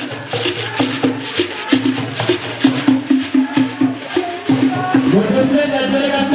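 Music with shakers keeping a fast, even beat over a repeating low pitched pattern.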